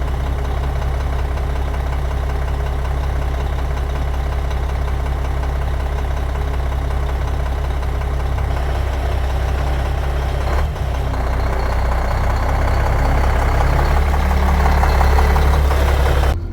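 Concrete pump truck's diesel engine running steadily as the truck pulls away. The engine note dips briefly about two-thirds of the way through, then grows louder near the end.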